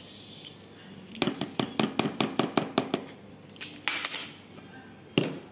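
Kitchen utensils clinking against containers while baking powder is measured into the batter: a quick run of about a dozen light clinks, a short rattle, then one sharp knock near the end.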